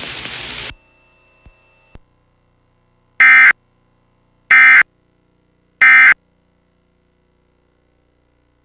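Emergency Alert System end-of-message signal: three short, loud bursts of buzzing SAME digital data tones, about 1.3 s apart, closing the severe thunderstorm warning. Before them, a moment of radio hiss cuts off under a second in.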